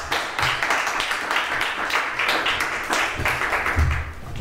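Small audience applauding, the clapping dying away near the end, followed by a few low thuds.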